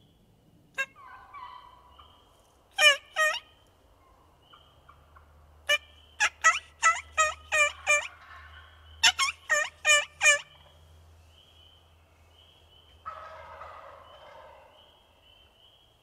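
Turkey yelping loudly: two yelps, then a run of seven, then a run of four, each run evenly paced, with a rougher, longer turkey call near the end. A sharp click comes about a second in, and a small bird chirps faintly over and over.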